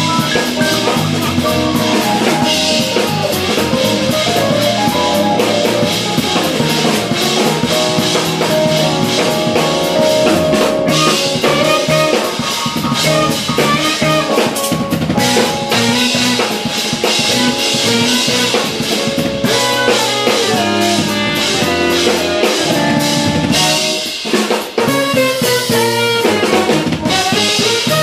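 A live jazz-fusion band playing: busy drum kit with rimshots over electric bass, electric guitar, keyboards and alto saxophone. The music briefly thins out with clipped hits near the end.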